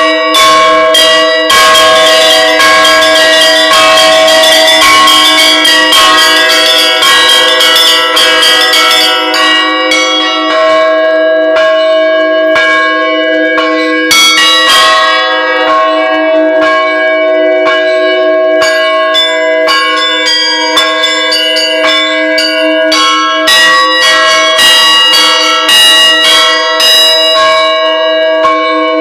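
Bells ringing, struck in rapid succession, with the tones of the strikes ringing on and overlapping.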